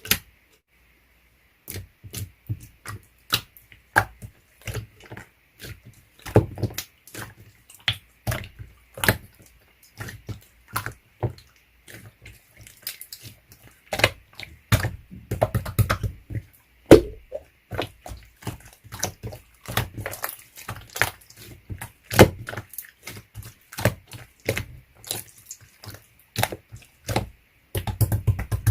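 Slime being squeezed, pressed and poked by hand, giving irregular wet clicks, pops and squelches that start about two seconds in.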